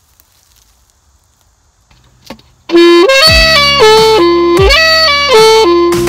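Saxophone starting a loud melody of stepping notes about two and a half seconds in, after a near-quiet start and a single click. Under it, a deep bass thump that falls in pitch hits about every second and a half.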